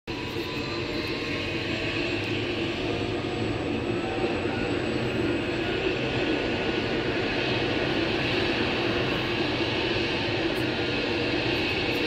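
Helicopter flying over: a steady engine and rotor drone that grows slightly louder.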